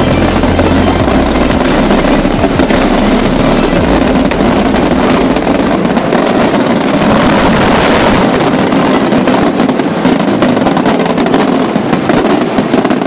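Fireworks display: a dense, continuous barrage of aerial shell bursts and crackling stars, very loud, with deep booms in the first few seconds.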